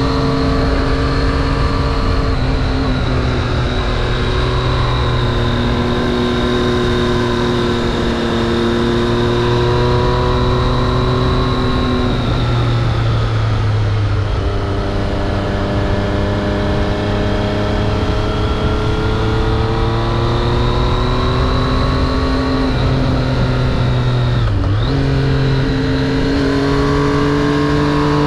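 Triumph Street Triple RS inline three-cylinder motorcycle engine running under way, its note rising and falling slowly with the throttle over rushing wind noise. A brief sharp dip in the engine note comes near the end.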